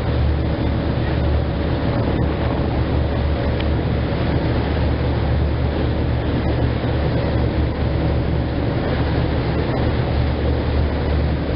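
Steady rush of wind and churning wake water from a boat under way at sea, with a deep steady rumble underneath and a faint steady hum.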